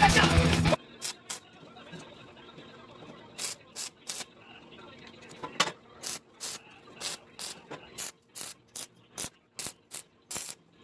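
Background music cuts off abruptly under a second in. After it comes a run of sharp, irregular crackling clicks, about two a second and closer together near the end, from a small inverter stick welder striking short arcs to tack steel grill bars.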